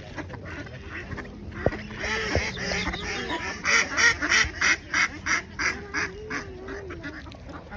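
Ducks quacking, with a rapid run of harsh calls at about four a second in the middle.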